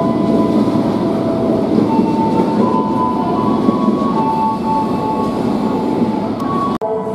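KRL commuter electric train moving along the station tracks: a steady rumble with high tones that step up and down in pitch. It cuts off abruptly near the end.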